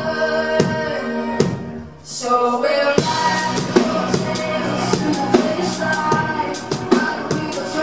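Live band playing electropop: a woman singing over keyboards and a drum beat. The music drops away briefly about two seconds in, then the full beat comes back in about a second later.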